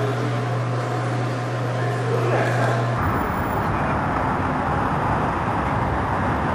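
A steady low hum with faint voices for about three seconds, then a sudden change to city street traffic: cars driving past with a continuous rush of road noise.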